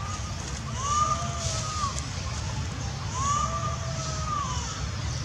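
Macaque coo calls: two drawn-out tonal calls, each rising, holding and then falling over about a second, roughly two seconds apart, over a steady low rumble.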